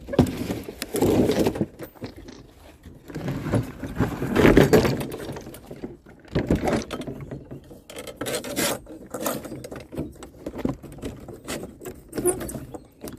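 Irregular knocking, clattering and rustling of objects being handled, in uneven bursts with the loudest stretches about a second in and around four to five seconds in.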